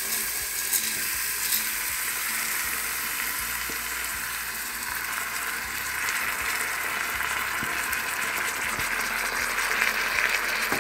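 Hot oil with tempered vegetables and spices sizzling steadily in a rice cooker pot as washed rice is poured in on top, with a few faint ticks near the start.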